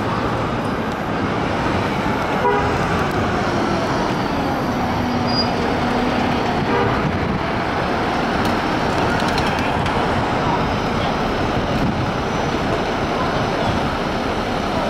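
A fire engine's diesel engine runs over steady, busy city-street traffic noise as the engine pulls up and comes to a stop. There are a few short horn toots about two and a half seconds in, and again around six to seven seconds.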